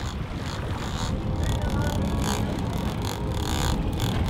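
Wind buffeting the microphone over the steady rush of water past the hull of a sailing catamaran under way on a choppy sea.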